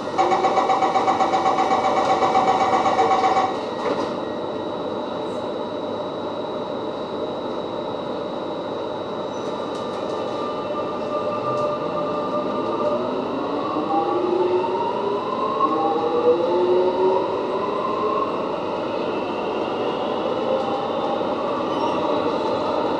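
Alstom metro train: a rapid beeping door-closing warning for about three and a half seconds, then the doors shut. About ten seconds in, the traction motors start a rising whine as the train pulls away, several tones climbing in steps over the steady rumble of the car.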